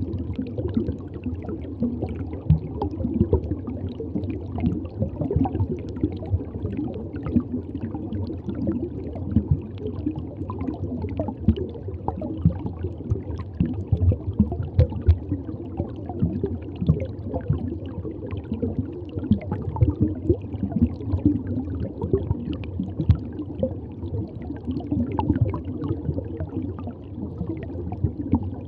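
Reef aquarium water circulating: a steady gurgling with frequent irregular small pops and bubbles.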